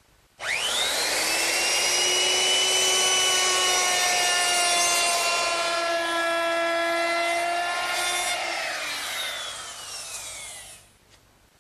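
Electric router with a 3/8-inch round-over bit, spinning up with a quick rising whine about half a second in, then running steadily while it rounds over the outside edges of an oak door frame. It winds down with a falling whine and stops near the end.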